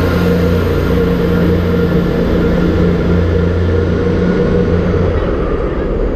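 Class 158 diesel multiple unit pulling out of the station, its underfloor diesel engines running with a steady low hum and a high whine. The sound fades away about five seconds in as the train draws off.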